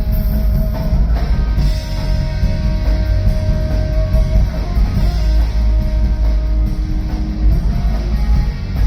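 Rock band playing live at full volume, with drum kit and guitar over a heavy bass end.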